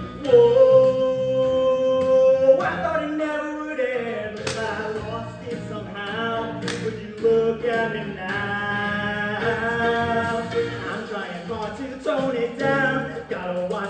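A male voice sings a show tune over a backing track, opening on a long held note and then moving through shorter sung phrases. Two sharp percussive hits come about four and a half and six and a half seconds in.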